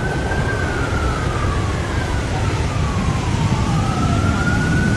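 Ambulance siren wailing, its pitch rising and falling in slow sweeps of about three seconds each. A steady low rush of surf and wind runs underneath.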